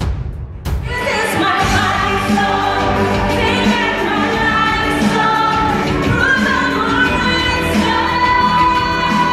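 A woman singing a pop song into a microphone over an amplified backing track, the melody coming in about a second in.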